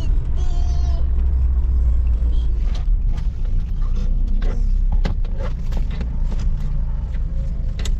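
Car in motion, a steady low rumble with a few sharp clicks.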